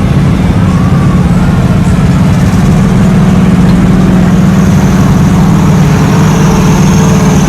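A vehicle engine running loudly at a steady, unchanging pitch, without revving, getting slightly louder about three seconds in.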